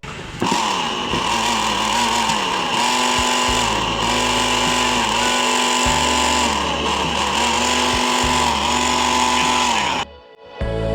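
A motor running, its pitch repeatedly dipping and coming back up, over background music; it cuts off abruptly near the end.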